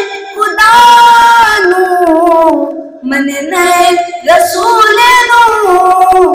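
A boy singing an unaccompanied Punjabi devotional poem (manqabat) in praise of Abu Bakr Siddique into a handheld microphone: long held, ornamented notes in phrases separated by short breaths.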